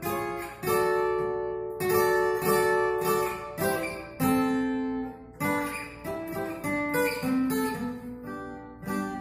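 Acoustic guitar strumming an instrumental introduction, with chords struck about once a second and each left to ring out; no voice yet.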